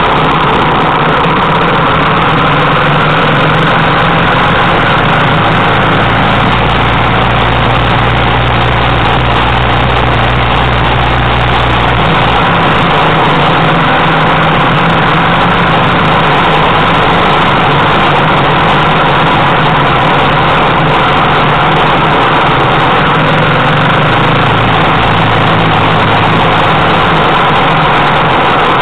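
Single-cylinder four-stroke engine of an MT-series military trail motorcycle running steadily under way, its note shifting slightly about twelve seconds in.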